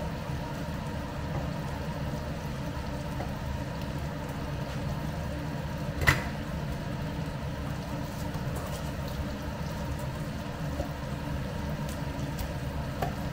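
Steady low hum and hiss of a lit gas stove with a pan simmering on it. One sharp utensil knock comes about six seconds in.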